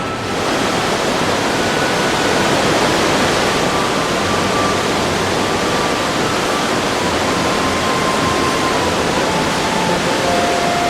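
Tamul waterfall's falling water: a loud, steady rush with no break, which comes in abruptly at the start.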